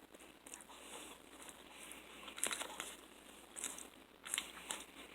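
Faint close-up eating sounds: crisp chewing and light crinkling, with a few sharp clicks scattered through.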